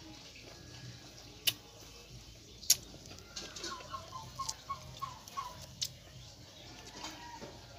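A chicken clucking in a quick run of short notes near the middle. Before it come two sharp clicks about a second apart, which are the loudest sounds, and another click follows the clucks.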